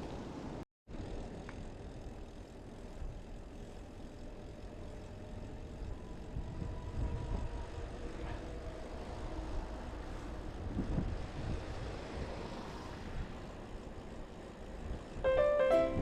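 Steady low outdoor rumble with a faint drifting hum, cut off by a brief gap about a second in; plucked ukulele-like music starts near the end.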